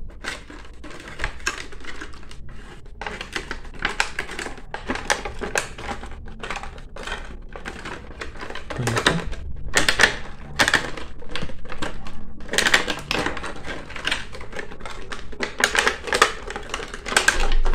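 Thin clear plastic blister packaging crackling and clicking as it is flexed and handled while the wire twist ties holding a figure in it are undone: an irregular run of crinkles and taps, louder in clusters about ten, thirteen and sixteen seconds in.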